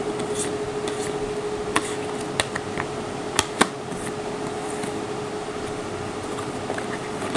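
Several sharp plastic clicks and taps as a stone-weighted plastic tub and the CD and cardboard disc on top of it are handled and turned, the loudest pair about three and a half seconds in, over a steady background hum.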